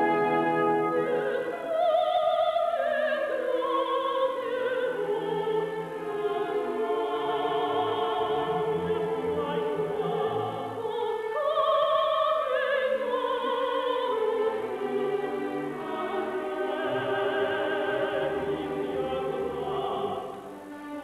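Female operatic voice singing a melodic line with vibrato, accompanied by orchestra, with a brief break near the end before the next phrase.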